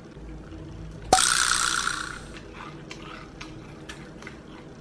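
Table eating sounds: a sharp click about a second in, then a rushing hiss lasting about a second, then a run of light, irregular clicks of chopsticks against dishes.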